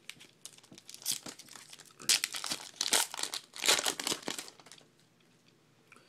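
A 2012 Bowman trading-card pack wrapper being torn open and crinkled by hand, in a few short rustling bursts over about three seconds.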